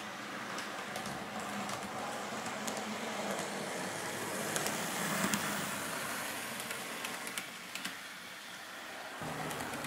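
Model railway diesel railcar running past on the layout track: a steady whirring rush from its motor and wheels, loudest about halfway through as it passes close, with light clicks of the wheels over the rail joints.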